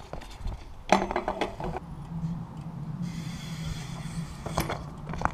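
BMX bike riding on concrete skatepark ramps: a sharp clatter of the bike about a second in, then its tyres rolling with a steady low hum, and a couple more knocks near the end.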